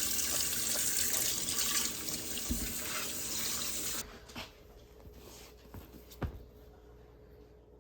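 Water running from a tap into a sink, a steady hiss that starts abruptly and is shut off about four seconds in, with a couple of low thumps.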